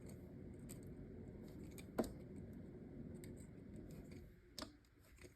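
Faint scraping and rustling of stripped copper wire ends being twisted together by hand, with a sharp click about two seconds in and a smaller one near the end.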